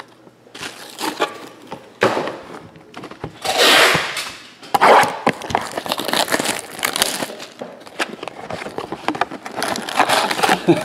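Foil-wrapped Panini Contenders Draft trading card packs crinkling and rustling as stacks are lifted and set down, with the cardboard display box being handled and tapped. Irregular clicks and rustles, with louder rustling sweeps about four and five seconds in.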